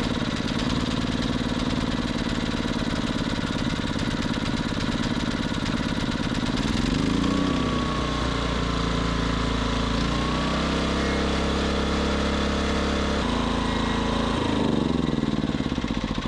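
Westinghouse iGen2500 inverter generator's small four-stroke engine running after a carburetor cleaning; its speed steps up about seven seconds in, shifts a couple of times, and drops back near the end.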